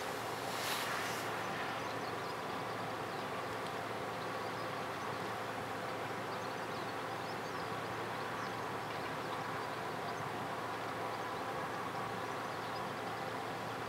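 Steady low drone of distant ship engines, from the container ship and her bow tug, over an even background hiss.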